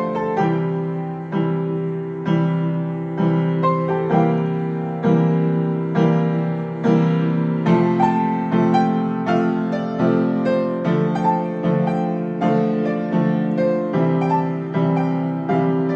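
Beale upright piano played with both hands: a slow arrangement of chords struck in a steady rhythm, with a melody on top.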